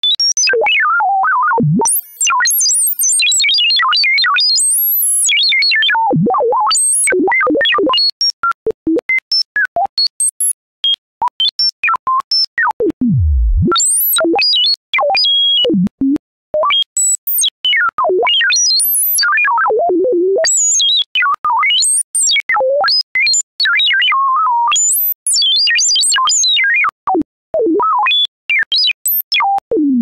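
Electronic whistling tones from Chrome Music Lab's Spectrogram drawing tool, one pitch at a time, sweeping rapidly up and down in beeping, warbling chirps like R2-D2. About halfway through, one sweep dives down to a deep low tone.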